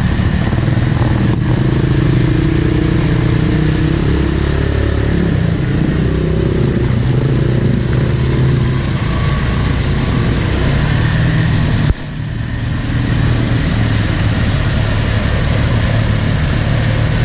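Off-road ATV or side-by-side engine running under varying throttle, its pitch rising and falling. About twelve seconds in the sound drops off suddenly, then builds back up.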